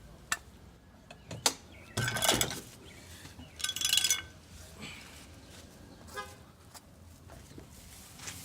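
A door being swung over a newly fitted sprinkler head: two sharp clicks, then two scraping, squeaking sweeps about two and four seconds in, as the door brushes the sprinkler.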